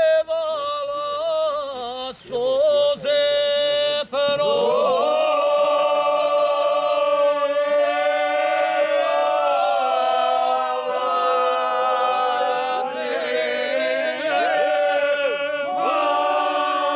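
A group of men singing bećarac, traditional folk song, unaccompanied. One voice leads alone for about four seconds, then the others join in on long held notes.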